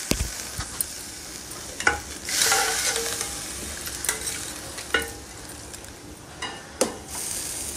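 Hot oil tempering of fried onion and ginger-garlic sizzling as it is poured from a small pan into a pot of chicken soup, with a stronger burst of sizzle about two and a half seconds in. A metal spoon scraping the pan and a ladle stirring the soup give a few sharp clinks.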